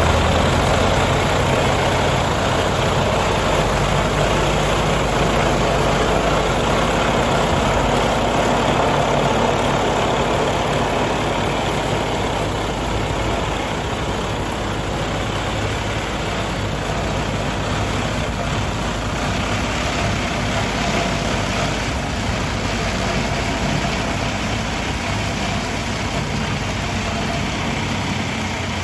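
Farm tractor's diesel engine running steadily under load, driving a tractor-mounted sugarcane cutter as it cuts through standing cane.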